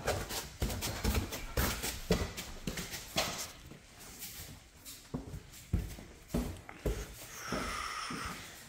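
Footsteps of a person in disposable shoe covers going down a staircase and along new plank flooring, about two steps a second.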